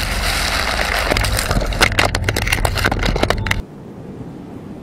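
Heavy rumbling noise with a rapid run of sharp cracks and pops from an explosion's smoke-filled aftermath, cutting off suddenly about three and a half seconds in to a much quieter steady hiss.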